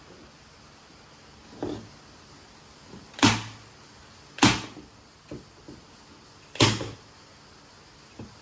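Sharp impacts: a fainter knock, then three loud sharp snaps one to two seconds apart, each with a short low ring, and a couple of small knocks between them.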